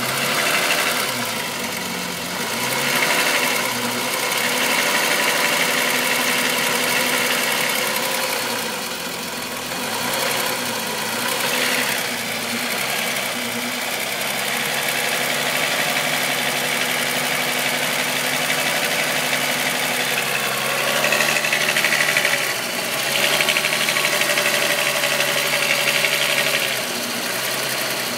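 A VW Golf's 2.9-litre VR6 engine running, with a chain-like rubbing noise. The owner suspects the timing chain, and the noise is still there with a new upper hydraulic chain tensioner screw fitted.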